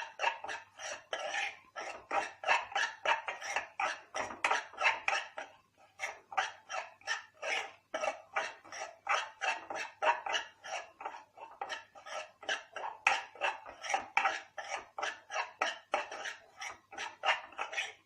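Metal spatula scraping a kadhai over and over while stirring semolina frying in ghee, about three or four strokes a second.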